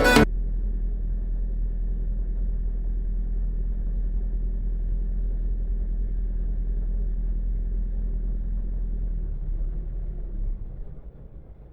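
Low steady rumble of a train passing the level crossing, dying away about ten and a half seconds in.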